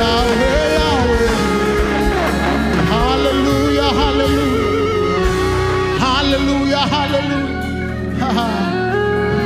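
Live gospel worship music: a band playing sustained chords, with voices singing over it in long, gliding lines.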